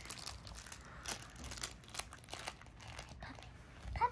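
Faint rustling and crinkling as a puppy and hands move over a plush blanket and a plush toy, with scattered soft ticks. A short pitched sound rises briefly near the end.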